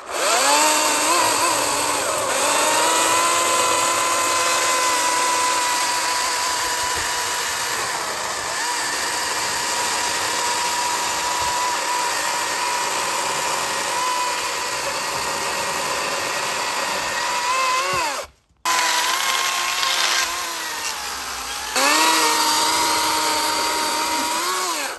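NovorikX 60V brushless cordless chainsaw running and cutting mulberry wood. Its high electric-motor whine dips and recovers in pitch as the chain takes load. The whine cuts out abruptly for a moment about two-thirds of the way through, then starts again.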